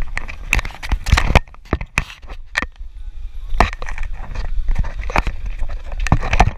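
Handling noise on a GoPro action camera: fingers rubbing and knocking on the housing, an irregular run of clicks, rustles and thumps over a low rumble.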